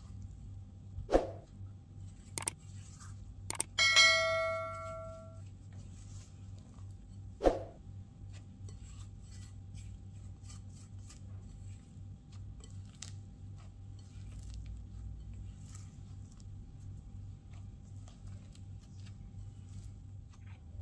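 A spatula stirs a stiff bread dough in a glass mixing bowl, with soft scraping and a few sharp knocks against the bowl. About four seconds in, one knock sets the glass bowl ringing like a bell for about a second and a half.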